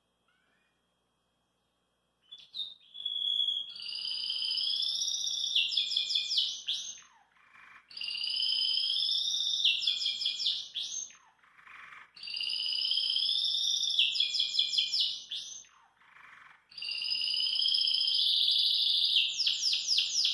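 Domestic canary (canário belga) singing: four long song phrases, each a fast, high trill that ends in a quick run of sweeping notes, with short pauses between them. The song starts about two seconds in.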